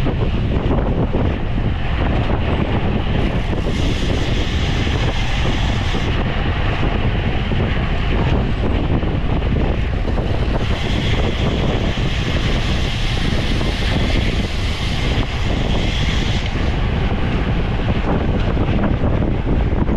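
Steady wind noise buffeting the microphone of a camera carried by a rider at racing speed. A brighter hiss comes in twice for a few seconds.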